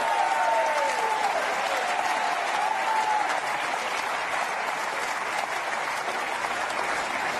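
Large arena audience applauding steadily, with a few pitched calls from the crowd sliding down over the clapping during the first three seconds.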